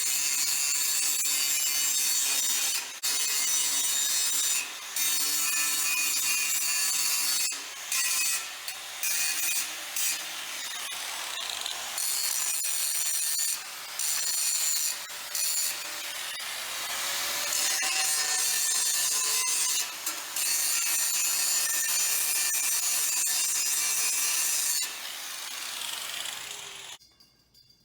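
Power tool cutting through the steel tube of a trailer tongue: a steady, loud, gritty high-pitched cutting sound, its pitch sagging at times under load. It breaks off briefly several times and stops about a second before the end.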